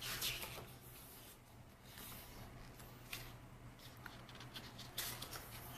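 Glossy photobook pages turned by hand: three short papery swishes, near the start, about three seconds in and about five seconds in.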